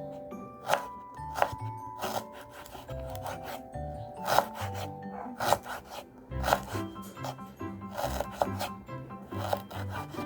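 Background music with a light melody of short plinked notes, over frequent sharp knocks and rubbing.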